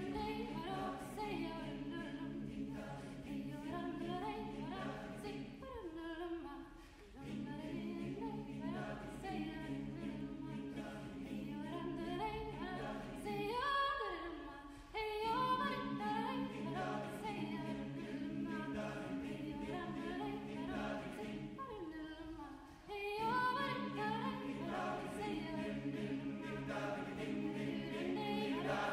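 A cappella choir singing sustained chords with a melody line above them, in phrases of about eight seconds separated by brief breaths.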